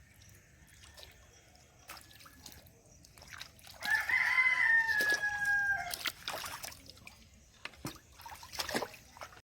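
A rooster crowing once, a call of about two seconds near the middle that dips slightly at its end, followed by scattered water splashes and drips.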